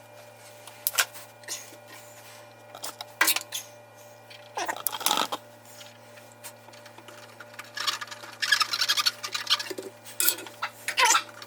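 Scattered clicks and knocks of tools and metal parts being handled, with a scrape about five seconds in and a brief rattling stretch near eight seconds, over a steady low hum.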